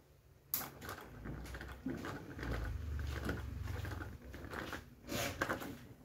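Niga 28-inch mini ceiling fan starting up from rest. A sharp click comes about half a second in, then irregular clicking and crackling over a low hum as the blades speed up. The owner puts the fan's hard starting down to running it on 60 Hz mains, which it was not designed for.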